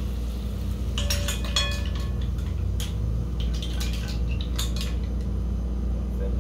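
Cooked mussels being scraped out of a metal frying pan into a bowl with a utensil: shells clinking and metal scraping on the pan, with a busy cluster of clinks a second or so in and more near the end. A steady low hum runs underneath.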